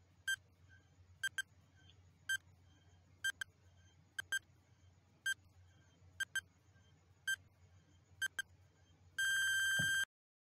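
Countdown timer sound effect: a clock-like tick about once a second, some of them doubled, then a buzzing electronic alarm tone for about a second as the timer reaches zero.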